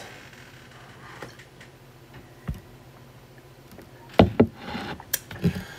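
Quiet room tone with a few soft knocks and taps: one about two and a half seconds in, then a short cluster near the end, the loudest about four seconds in.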